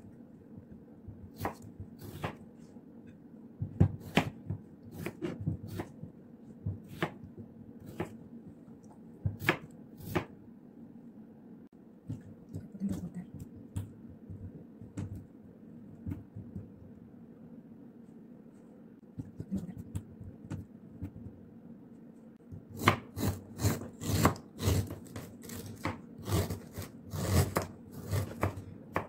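Kitchen knife cutting raw potatoes on a plastic cutting board. Scattered single cuts knock on the board, then a quieter stretch, then quick, steady chopping for the last several seconds.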